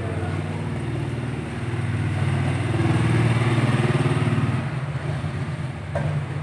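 Motorcycle engine running steadily, growing louder about two seconds in and easing off again after about four and a half seconds.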